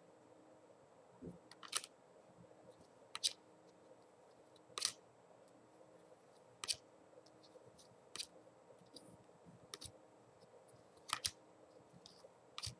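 Topps football trading cards being flipped through one by one by hand, each card shuffled to the back of the stack with a short sharp snap, about every second and a half.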